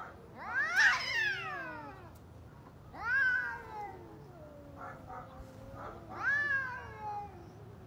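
Cats yowling at each other as they square off: three long drawn-out calls, each rising and then sliding down, with a low wail between them. The first call is the loudest.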